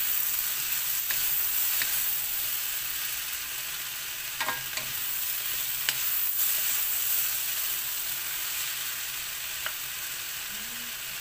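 Bean sprouts, cabbage and carrot sizzling steadily in a hot wok while being tossed with wooden spatulas, with a few sharp knocks of the spatulas against the pan.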